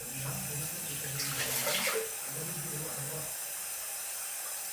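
Water running from a tap and splashing as a face mask is rinsed off, with a louder stretch of splashing about a second and a half in.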